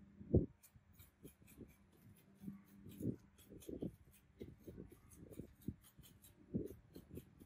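Close handling sounds of an extraction: irregular soft thumps with faint dry clicks from steel tweezers and fingers holding cotton pads against skin. The loudest thump comes about half a second in.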